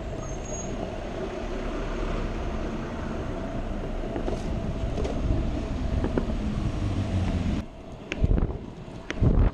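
Freestyle stunt scooter's wheels rolling over pavement, a steady rumble with a steady hum in it. About three-quarters of the way through the rumble drops away and two brief low thumps follow.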